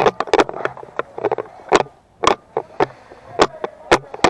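GoPro camera rattling in its loosely secured base-plate mount: irregular sharp clicks and knocks, about three a second, over a rustling of movement.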